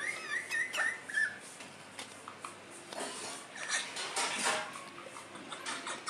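Rose-ringed parakeet giving a short wavering whistle in the first second, followed by scattered light clicks and taps.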